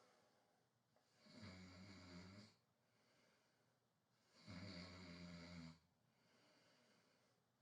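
A man snoring faintly: two drawn-out, rumbling snores about three seconds apart.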